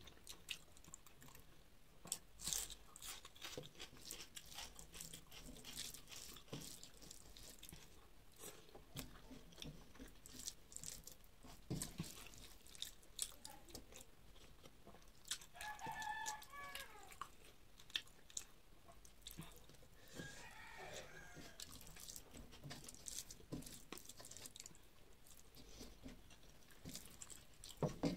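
A person chewing food with many small wet clicks and smacks, eating rice and fish curry by hand. Around the middle a faint pitched call sounds twice in the background.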